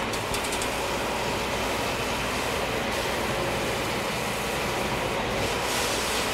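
Sewer vacuum truck running its vacuum, a steady rushing drone over a low engine hum, mixed with the hiss of a 600 PSI hand spray gun jetting water onto a catch basin grate. The spray hiss grows stronger about five seconds in.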